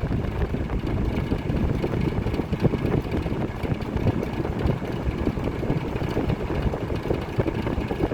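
Toastmaster 5337 box fan running on its high setting: a steady, low rush of air from the spinning blades.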